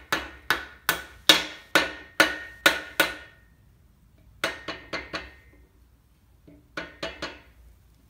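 A hammer tapping a main bearing cap down onto its seat in a 4.6 engine block. There is a run of about eight steady strikes, roughly two a second, each with a short ring, then after a pause two shorter groups of quicker, lighter taps.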